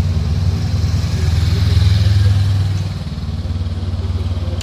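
Honda CL500 motorcycle's parallel-twin engine running at low revs as the bike weaves through a cone slalom and passes by. It grows louder to a peak about two seconds in, then fades as the bike moves away.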